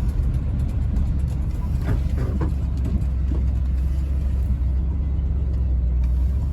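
Truck engine running while the truck is driven slowly, a steady low rumble heard from inside the cab.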